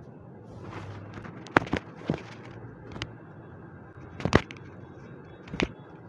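Chiropractic adjustment of the forearm and wrist: a series of sharp joint cracks and pops, about half a dozen, irregularly spaced. The loudest come about one and a half seconds in and again past the middle.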